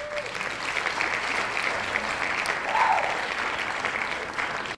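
Crowd applause, dense and steady, which starts suddenly and cuts off suddenly like a sound effect cut into the edit.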